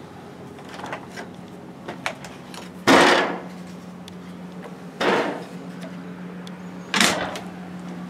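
Motorhome refrigerator-freezer doors being opened and shut: three sudden clunks about two seconds apart, the first the loudest, over a faint steady hum.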